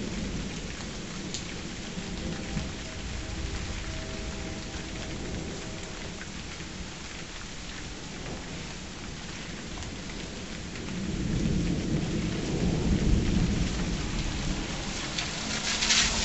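Steady rain falling in a night thundershower, with a low rumble of thunder swelling up about eleven seconds in and lasting a few seconds. A short, sharper burst of noise comes near the end.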